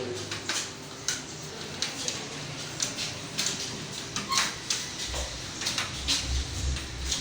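Computer keyboard being typed on: quick, irregular key clicks, a few a second, during a timed typing test.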